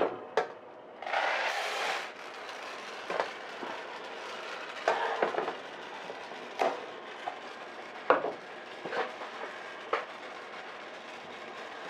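Green coffee beans poured into the hot pan of a West Bend Stir Crazy popper with a rushing rattle about a second in, then the beans tumbling and rattling as the stirring arm sweeps them around under a steady turbo-oven fan, with a sharp clack every second or two.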